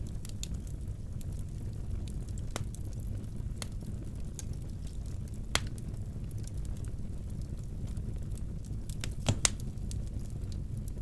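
Wood fire burning in a fireplace: a steady low rumble with scattered sharp cracks and pops, the loudest one about halfway through and a pair near the end.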